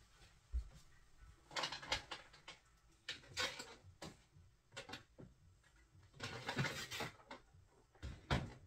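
Irregular knocks, clicks and short rustling bursts of objects being handled, with the longest bursts a little after the six-second mark and near the end.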